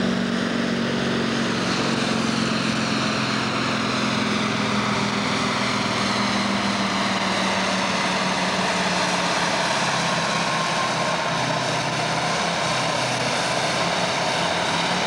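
Farm-stock pulling tractor's diesel engine running hard at full load as it drags a weight-transfer sled, a loud, steady engine note with no let-up.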